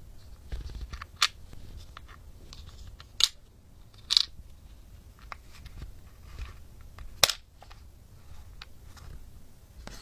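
Small plastic toy pieces handled on a tabletop: soft rustling and light taps, with four sharp plastic clicks, the loudest about a second in and near the middle.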